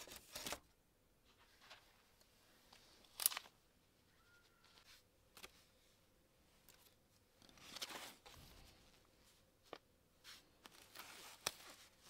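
Quiet handling sounds of craft materials: a few scattered small clicks and brief rustles, the sharpest click about three seconds in.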